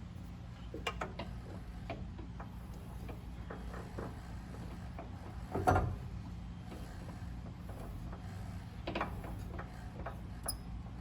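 Faint clicks and knocks of handling around a mini lathe's open headstock, the loudest about 6 seconds in, over a steady low hum.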